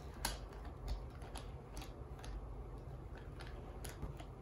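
Plastic toy monster trucks clicking and clacking as a child handles and pushes them: scattered light clicks, about two a second, over a steady low hum.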